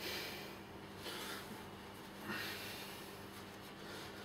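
A man breathing hard from exertion during a long set of one-legged pistol squats: a few short, forceful breaths about a second apart.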